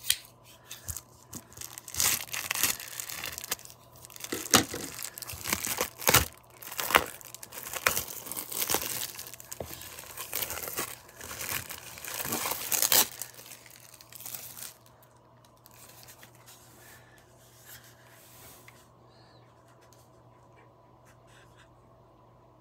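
Clear plastic wrap being torn and peeled off a wooden cigar box, crinkling and tearing loudly for about eleven seconds. Then quieter rustling as the unwrapped box is handled.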